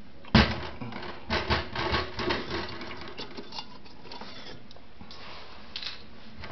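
Metal parts of a 1960s Oak Acorn gumball machine's coin compartment being handled: a sharp knock about half a second in, then a run of small clicks and rattles that thins out into occasional fainter clicks.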